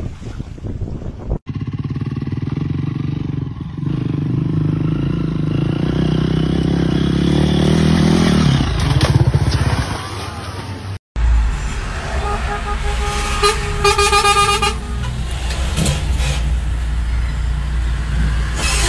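Road traffic: vehicle engines rumbling, with a horn honking for about a second and a half in the middle of it.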